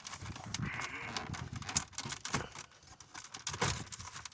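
Irregular light clicks and clatter of hand tools and plastic dashboard parts being handled, with one sharper click a little under two seconds in.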